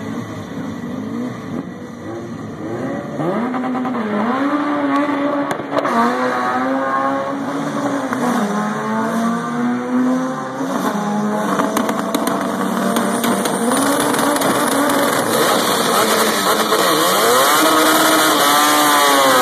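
Drag car's engine revving up and down several times, then held at high revs with rising tyre noise as the car does a burnout at the starting line.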